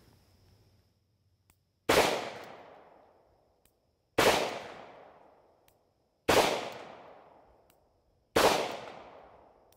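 Four shots from a lightweight Colt Cobra revolver, fired slowly in double action about two seconds apart. Each sharp crack trails off over a second or so.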